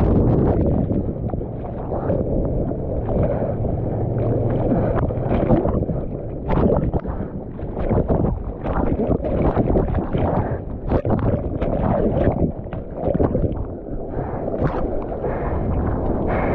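Churning surf heard with the camera underwater while a bodyboarder is tumbled by a breaking wave: a dense, muffled rumble broken by irregular splashes and knocks. Near the end it opens into the hiss of foaming whitewater at the surface.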